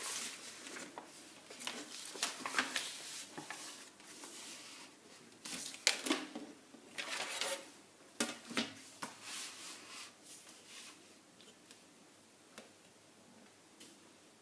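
Pattern paper rustling and a clear plastic drafting ruler and tape measure being handled on a table, in irregular scrapes and taps. The loudest handling comes about six and eight seconds in, then it grows quieter.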